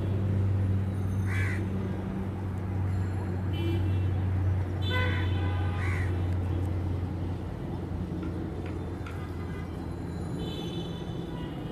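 Three short, harsh bird calls, about four seconds apart and then two close together, over a steady low hum that fades about seven seconds in.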